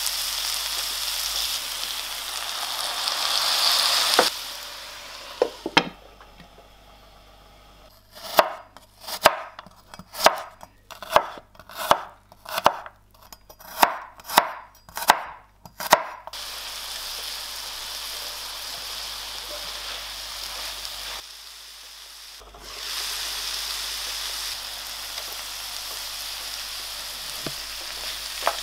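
Broccoli and champignon mushrooms sizzling in a frying pan. A few seconds later a chef's knife chops a garlic clove on a wooden board, about a dozen sharp strokes. Then the pan sizzles again while a wooden spatula stirs the vegetables.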